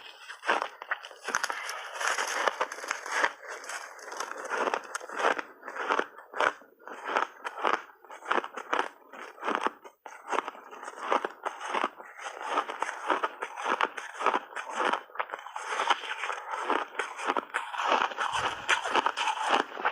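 Teeth biting into and chewing crunchy refrozen ice: a rapid, dense run of crisp crunches and crackles with brief pauses between bites.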